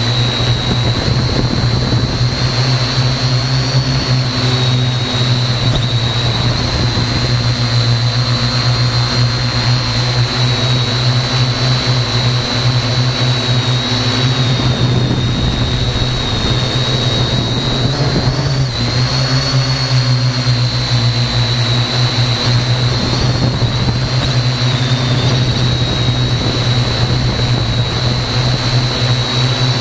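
Parrot AR.Drone quadcopter's four motors and propellers running steadily in flight, picked up close by a camera mounted beneath the drone: a loud low hum under a high whine that wavers slightly in pitch.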